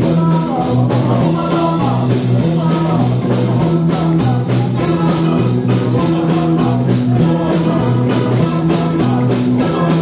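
Rock band playing with a fast, steady drum beat under sustained low notes.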